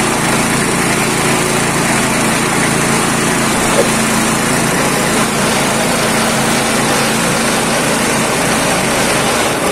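Small single-cylinder petrol engine driving a foam-shredding machine, running steadily.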